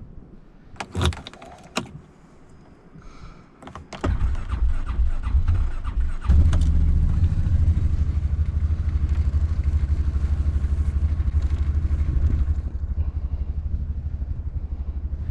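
A Can-Am Defender side-by-side is started. A few sharp clicks and a brief tone come first; about four seconds in the engine cranks and catches, picks up a little about two seconds later, then settles into a steady run.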